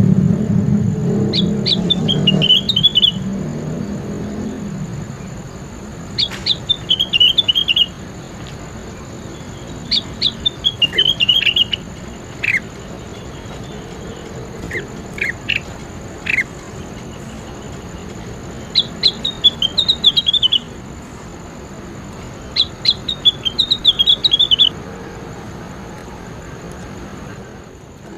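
A songbird singing short phrases of quick, high chirping notes, a phrase every few seconds, as used in masteran bird-training recordings. A low rumble at the start fades out over the first few seconds.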